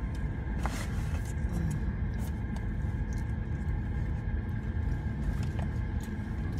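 Steady low rumble of a car's idling engine heard inside the cabin, with a few faint clicks.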